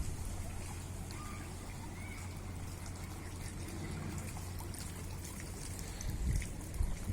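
Running water trickling steadily, with a low steady rumble underneath.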